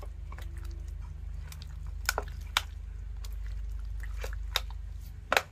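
A bare hand squishing and kneading raw chicken pieces in thick wet masala paste in a steel bowl: irregular wet squelches and smacking clicks, the loudest near the end, over a low steady hum.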